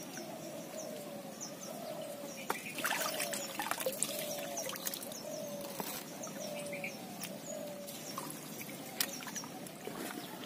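Pond water splashing and trickling as someone wades among water lilies and pulls up their long stems, in a cluster of splashes a few seconds in. Birds chirp repeatedly in the background.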